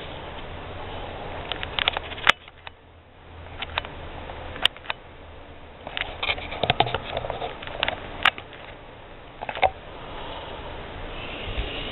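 Victorinox Huntsman Plus Swiss Army knife being handled, its tools opened and closed: a series of sharp clicks and snaps from the blades and back springs, scattered with a busy cluster in the middle, over a steady hiss.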